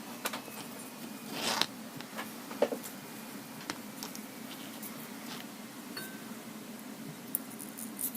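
Small objects being handled: scattered light clicks and taps, with a short scraping rub about one and a half seconds in, over a low steady hum.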